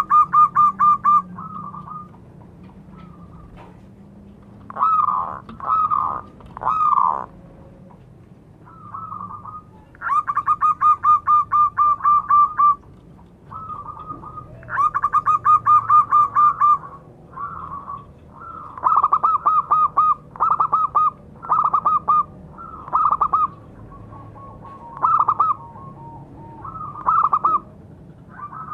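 Zebra dove (perkutut) cooing: long runs of rapid short coos, about seven a second, broken up by shorter phrases of a few coos, again and again.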